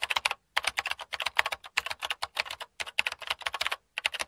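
Rapid, irregular clicks of keyboard typing, several keystrokes a second in runs broken by brief pauses.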